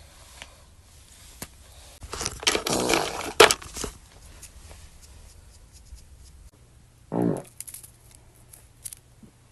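A person farting: a long fart of about two seconds, with a sharp knock near its end, then a short second fart about seven seconds in.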